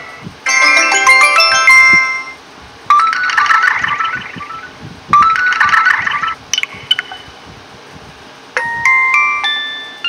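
Vivo smartphone notification tones previewed one after another through the phone's small speaker: about five short electronic chime jingles and quick trills, each lasting a second or two, the longest first, with short gaps between them.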